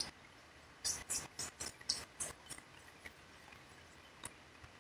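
A person chewing a mouthful of food close to the microphone: a quick run of wet mouth clicks and smacks for about two seconds, starting about a second in, then a few scattered clicks.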